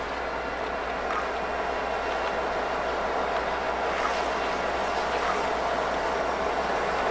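A train running on the line: a steady noise that grows slowly louder.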